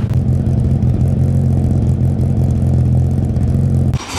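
Renault Clio F2000 rally car's engine idling steadily. There is a short dip near the end.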